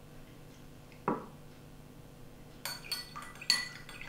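A spoon stirring a drink in a glass and clinking against its sides: a quick run of sharp, ringing clinks in the second half. About a second in there is one dull knock.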